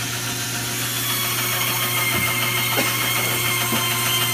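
Stationary woodworking saw running with a steady hum and a high whine as wood is fed through it.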